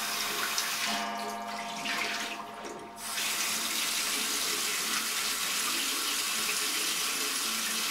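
Hot water running from a bathroom tap into a shaving bowl to warm it before lathering. The flow eases off about two to three seconds in, then runs steadily again.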